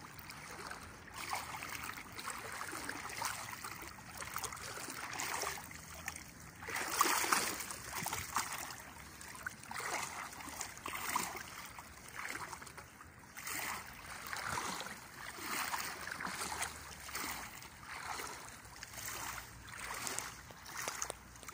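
Legs wading through shallow river water, splashing and swishing with each stride, roughly one swish a second.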